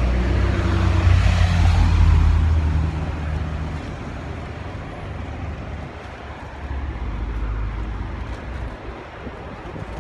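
A vehicle engine passes close by. Its low engine note and a rush of noise swell over the first two seconds, then fade, leaving a steady background hum.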